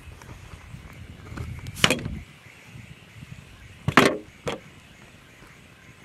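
Two loud knocks about two seconds apart, the first coming after a couple of seconds of low rumbling handling noise.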